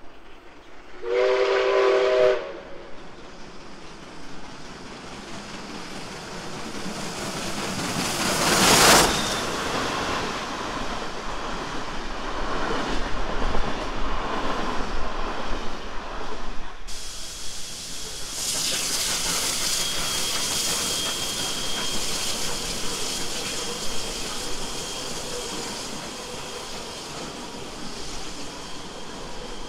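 NSW 59 class steam locomotive 5917 sounding its steam whistle once, briefly, about a second in, then approaching and passing with a rising rush of steam hiss and exhaust, loudest about nine seconds in. After an abrupt change near the middle, the train's carriages roll on with a steady rumble and a thin, high, steady tone.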